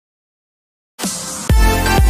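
Silence for about a second, then electronic dance music begins abruptly, with a heavy bass beat coming in about half a second later.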